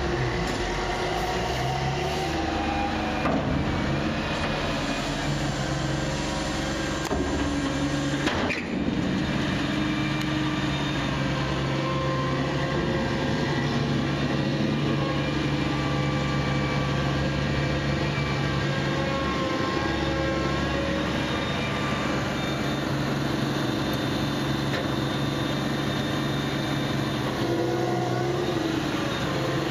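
Heavy tractor diesel engines running steadily, a low even engine drone: a Challenger rubber-tracked tractor pushing chopped silage up the clamp with a push blade, after a tipping silage trailer.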